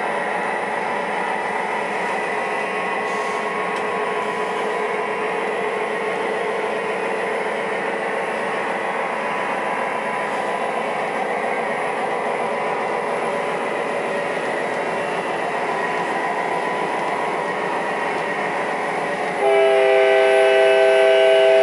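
MTH O-gauge model freight train running on three-rail track, a steady rumble with the locomotive's electronic diesel engine sound. Near the end a loud multi-note horn blast from the model's sound system starts suddenly and holds.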